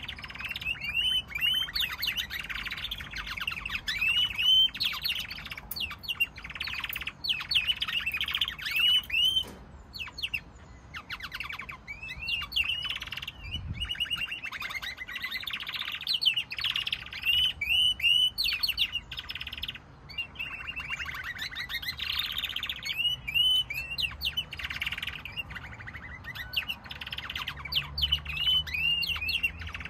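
Domestic canaries singing: a near-continuous song of fast trills and chirps, dropping off briefly about ten and twenty seconds in.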